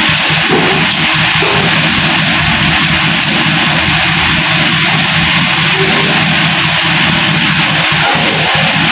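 Massey Ferguson tractor engine running steadily while the tractor stands still, mixed with background guitar music.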